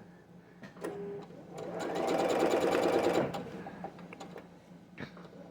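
Sewing machine stitching through fabric in one short run of about a second and a half, starting about a second and a half in, with a few small clicks before and after as the work is set under the foot.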